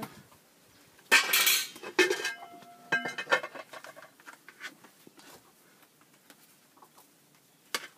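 A metal spoon scraping and clinking in a metal cooking pot and against a metal plate as food is dished out. There is a loud scrape about a second in, a ringing clank about three seconds in, then light taps and a sharp click near the end.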